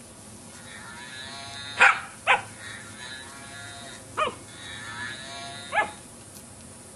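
A toy cow's recorded moo sounding again and again, with a standard poodle puppy barking at it four times in short, sharp yaps that are the loudest sounds.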